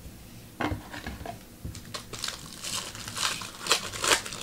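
Crinkling and rustling of a foil trading-card pack wrapper being handled, in short clicky bursts that grow louder in the second half.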